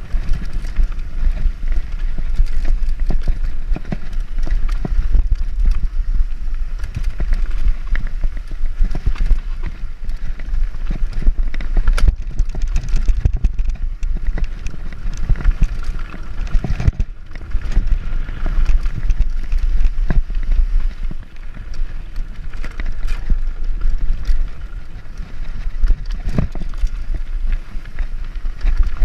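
Mountain bike descending a dirt and gravel trail at speed, with tyres on loose ground and the bike rattling over bumps in frequent short knocks and clatters. Wind buffets the microphone in a steady low rumble underneath.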